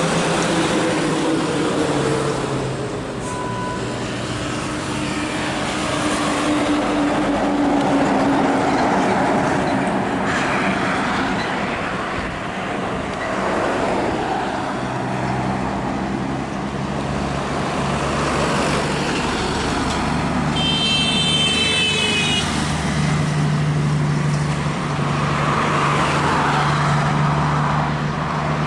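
Diesel engines of heavy Scania grain trucks on the highway, over tyre and traffic noise. The engine note falls over the first several seconds as a truck passes, then settles into a steady low drone as the trucks pull away. A brief high-pitched toot sounds about 21 seconds in.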